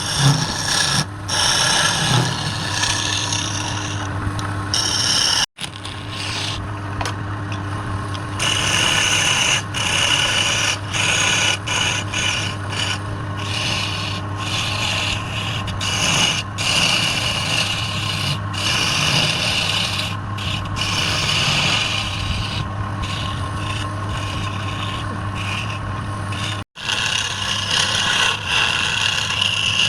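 Wood lathe running with a steady motor hum while a tool scrapes against the spinning wood, a hissing rasp that swells and eases. The sound cuts out briefly twice.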